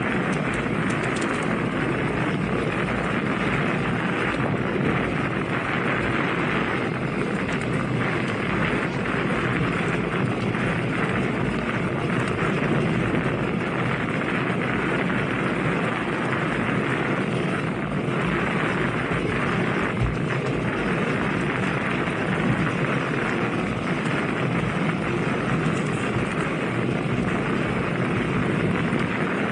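Steady rush of wind buffeting the microphone while riding a bicycle at speed, with no distinct events.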